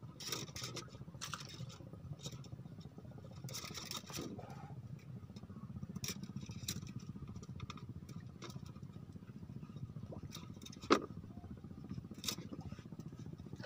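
Small clicks and taps of fishing rods and line being handled over a steady low rumble, with one sharp, louder click about eleven seconds in.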